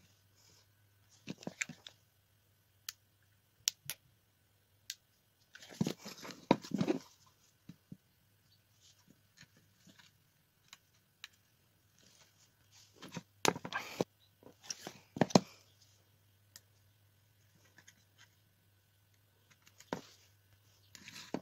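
An empty plastic bottle with wooden popsicle sticks on it being handled and pressed by hand: scattered crinkles, taps and clicks in a few short clusters, over a faint steady hum.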